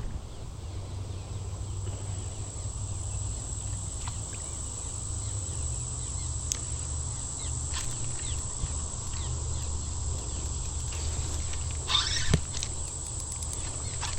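Insects buzzing steadily in creekside brush, with a few faint bird chirps and a low rumble underneath. About twelve seconds in comes a short scraping rustle.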